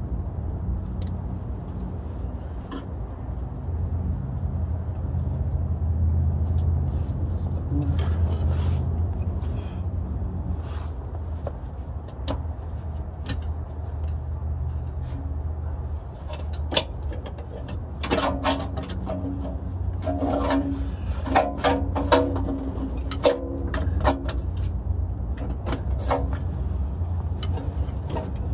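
Hand tools clinking and tapping against metal under a car, with a run of louder clanks in the second half, over a steady low rumble.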